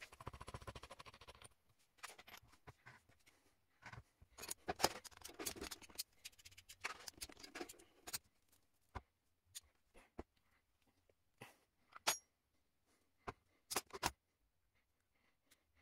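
Small metal parts being handled on a wooden worktop: a quick run of light ticks as a nut is spun onto the threaded rod through a sanding drum, then locking pliers and a wrench clicking and scraping as the nut is tightened, with a few separate sharp clicks near the end.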